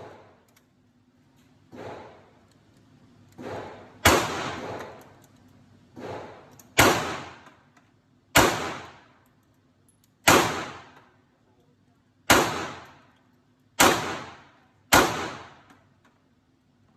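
Gunshots: about seven loud shots, spaced one to two seconds apart, each ringing off in an echo, with fainter shots in the first few seconds.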